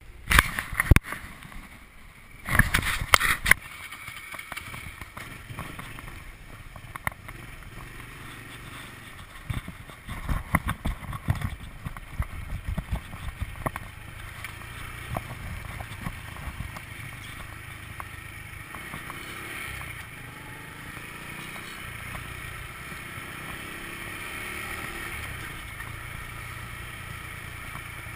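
Motor scooter riding along, its small engine running under steady wind and road noise on a handlebar-mounted camera. Loud knocks and thumps come in the first few seconds, and another run of bumps about ten seconds in.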